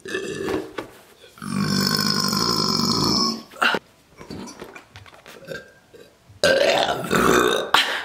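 A woman burping into the neck of a latex balloon to inflate it: two long burps, the first lasting about two seconds, the second about a second long near the end.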